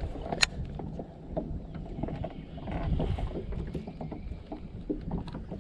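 Water lapping against a small fishing boat's hull, with scattered light knocks and a sharp click about half a second in.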